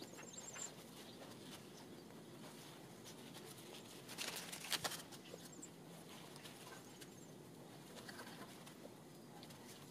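Gloved hands setting a potted plant into a balcony flower box: quiet handling noise with a short cluster of light rustles and knocks about four seconds in. Faint outdoor background with a few distant bird chirps.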